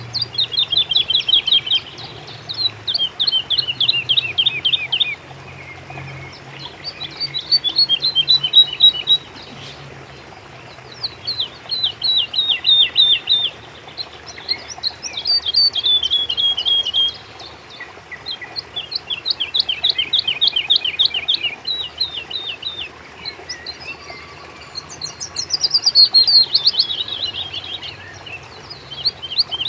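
A songbird singing: repeated phrases of fast, downward-sweeping notes, each phrase about one to three seconds long with short pauses between, over a faint steady background hiss.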